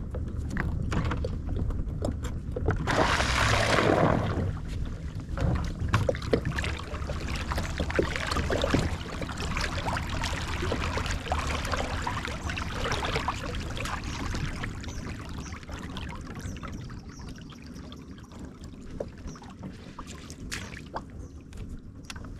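Water splashing and sloshing around a small fishing boat, with scattered knocks and handling noises and a louder rush of splashing about three seconds in.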